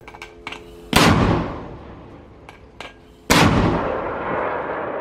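Mortar fire: two loud blasts about two and a half seconds apart, each trailing off in a long rolling echo. A few faint clicks come before the first blast.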